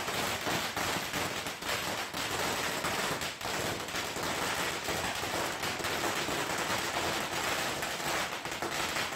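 A long string of firecrackers hung from a pole going off in a rapid, unbroken crackle of bangs.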